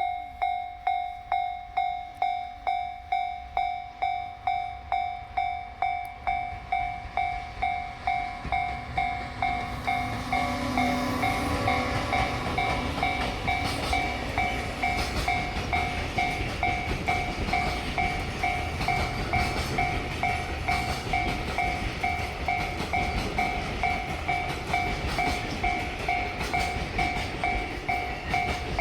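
Level crossing warning bell ringing steadily about twice a second. From about ten seconds in, a freight train of an EF210 electric locomotive and container flatcars passes over it, its wheels clacking heavily over the rail joints under the continuing bell.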